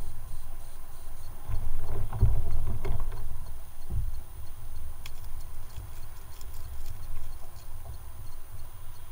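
Wind rumbling on the microphone, with a few knocks and rattles as a landing net and fishing rod are handled in an inflatable kayak.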